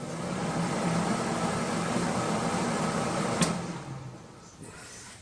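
Kitchen range hood's fan running with a steady whir and low hum. About three and a half seconds in, a switch clicks and the fan winds down.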